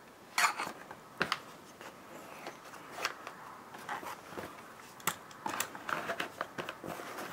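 Hand tools such as a hex key and a screwdriver being slid and fitted into a stiff leather tool pouch: a series of scattered clicks and knocks of the tools against each other and the pouch, with leather rubbing and rustling between them. The loudest knock is about half a second in.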